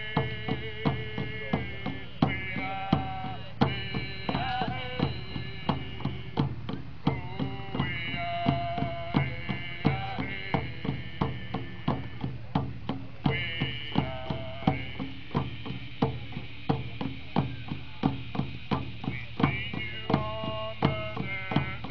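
Native American song sung to a steady, even beat on hand drums: the voices hold long, sliding notes over the drum strokes.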